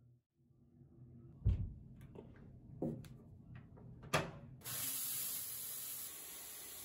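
Two knocks, then a click as the shower's mixer lever is turned, and a handheld shower head starts spraying water with a steady hiss about two-thirds of the way in.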